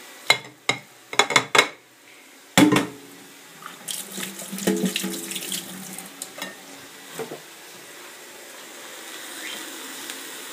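A run of sharp knocks and clatters from a china plate, the loudest about two and a half seconds in. Then a kitchen tap runs into a stainless steel sink as the plate is rinsed.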